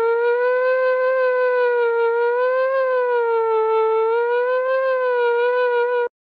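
A single held note from the REDTRON plug-in's Mellotron M400 tape samples, its pitch swaying gently up and down a few times as the global pitch knob is turned. The note cuts off abruptly near the end.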